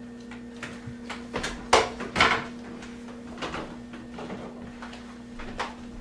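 Several sharp knocks and clunks of things being handled and set down, the loudest about one and a half to two seconds in, over a steady low hum.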